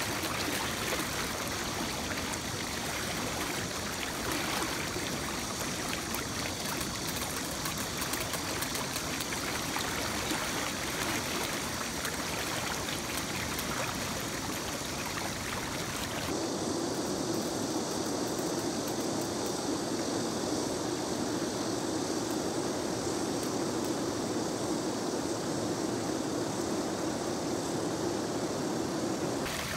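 Shallow river riffle rushing steadily. About halfway through, the rush abruptly turns duller and deeper.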